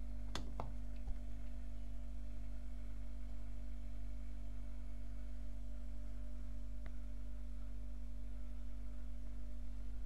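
Rotary program selector dial of a Bosch Maxx 7 washing machine clicking as it is turned: two quick clicks about half a second in and one more near seven seconds in, over a steady low hum.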